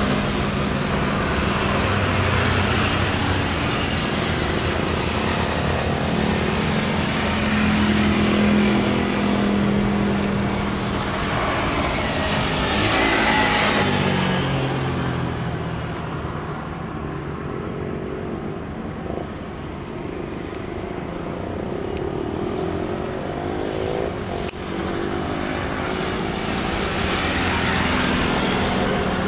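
Boeing 777-300's Rolls-Royce Trent 800 jet engines as the airliner lands: a steady engine whine on approach swells to a loud rush with gliding tones around touchdown, about halfway through, then eases off during the roll-out.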